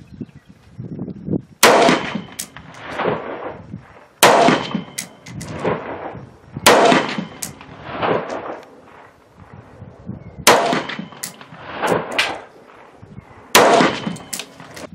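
Five single 5.56 rifle shots from an AR-style rifle with a 10.5-inch Faxon pencil barrel, fired slowly one at a time about two and a half to four seconds apart, each followed by echoes that die away over a couple of seconds. This is slow aimed fire for a five-shot group with the barrel still cool.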